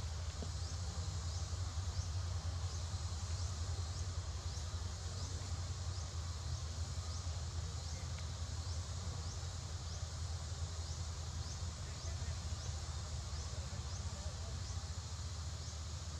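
Outdoor background: a steady low hum under a faint, short, high chirp that repeats evenly a little more than once a second.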